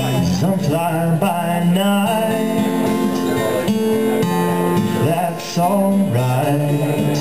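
Live solo acoustic guitar strumming chords, with a melody line carried over it and a brief drop in level about five seconds in.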